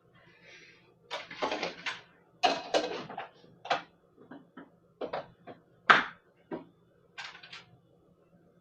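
Homemade slime being squished and handled by hand: a string of irregular short squelches and clicks, the sharpest about six seconds in.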